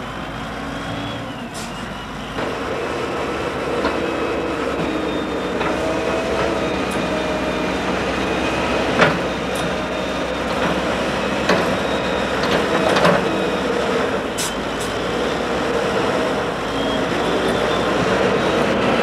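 Wheel loader's diesel engine running as it works a grab bucket into a heap of cut grass. The engine gets louder about two and a half seconds in, and there are a few sharp knocks and clanks.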